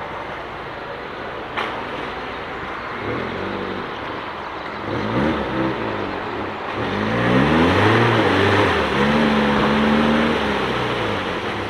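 A small off-road 4x4's engine revs up and down several times, its pitch rising and falling as it works through deep mud. There is one sharp click about one and a half seconds in.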